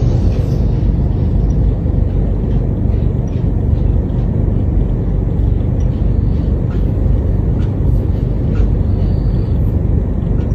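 A steady, loud low rumble with faint scattered ticks.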